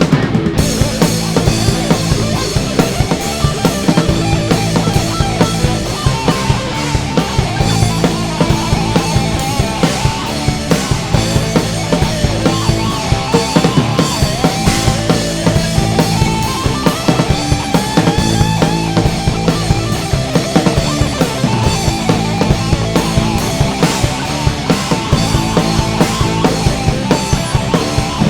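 Rock song with a driving drum kit, distorted guitar and bass.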